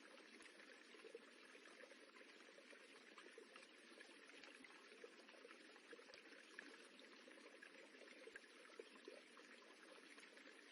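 Faint, steady rippling of running water, with small gurgles and trickles flickering through it.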